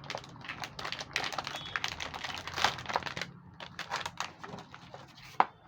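Quick, irregular small clicks and rustles from a graphics card's metal bracket plates and packaging being handled.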